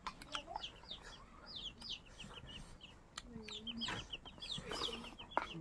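Faint chickens in the background: many short, high falling chirps in quick succession, with a lower cluck about three seconds in.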